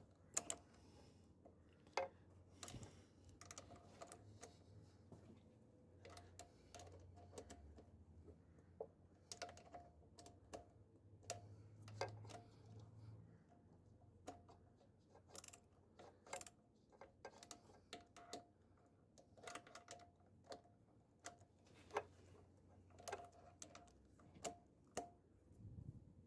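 Faint, irregular clicks and taps of hand tools and small metal parts being handled, over a low steady hum.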